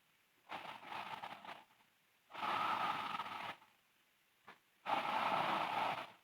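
A sleeping girl snoring loudly in a steady rhythm. There are three snores, each a little over a second long and about two seconds apart, and the first is softer than the other two.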